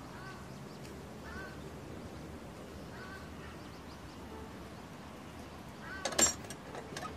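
Faint steady background noise with a few short, high chirps spread through it, and a brief louder rattle about six seconds in.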